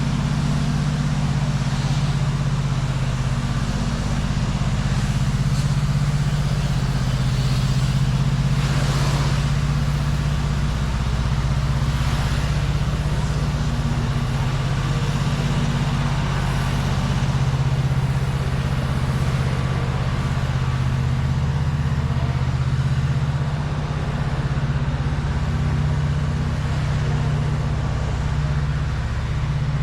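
Steady low hum of a running motor vehicle engine in street ambience, with brief hissy swells about nine and twelve seconds in.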